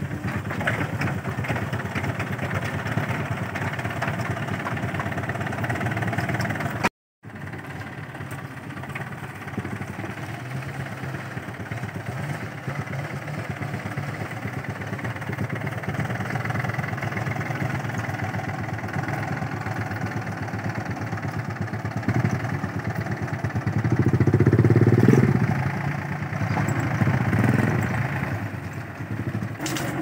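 Compact farm tractor's engine running steadily as it drives along while towing a loaded trailer, growing louder for a couple of seconds near the end. The sound drops out abruptly for a moment about seven seconds in.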